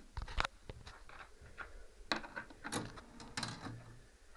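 Hard plastic clicks and knocks from handling a 1980s Telecom gold payphone: a quick pair near the start, then a few more scattered clicks from about two seconds in.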